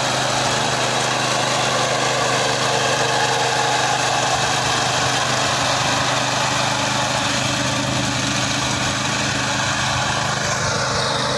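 Walk-behind fodder reaper's small petrol engine running steadily at working speed while its cutter bar mows through grass.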